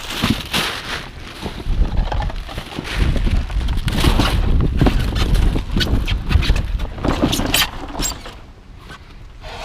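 Junk being rummaged through: a run of irregular knocks, clicks and rattles as items are moved and pulled out, over a low wind rumble on the microphone.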